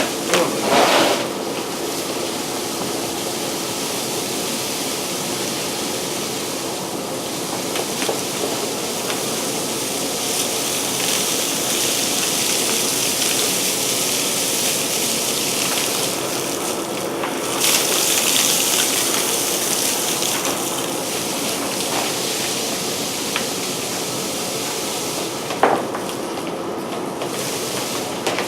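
Electric power tool running steadily: an even, loud whirring hiss with a motor hum under it and a couple of faint knocks.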